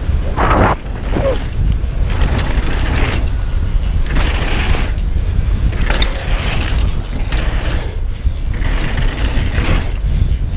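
Downhill mountain bike running fast down a dirt trail: steady wind rumble on the camera mic, with tyres scrubbing through the dirt in surges and the chain and frame rattling and clicking over bumps.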